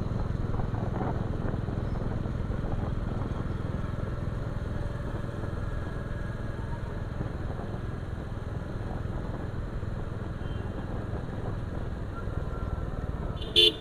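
Bajaj Pulsar 220F's single-cylinder engine running steadily at a cruise of about 40 km/h, with wind and road noise, heard from the rider's position on the moving bike. A brief sharp sound near the end.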